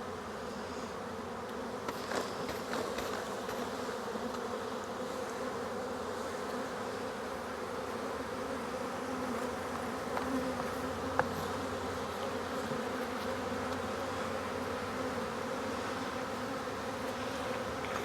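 Many honey bees buzzing in a dense, steady hum as they are brushed off the frames of a nuc, with a few light ticks and one sharper tick about eleven seconds in.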